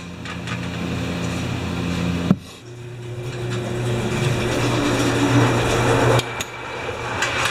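Steady low machine hum, broken by a sharp knock about two seconds in, after which a similar hum carries on until it cuts off suddenly about six seconds in.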